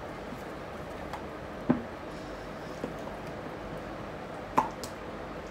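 Silicone spatula stirring thick batter in a glass bowl, with a few light knocks of the spatula against the bowl, two sharper ones, the second near the end, over a steady background hiss.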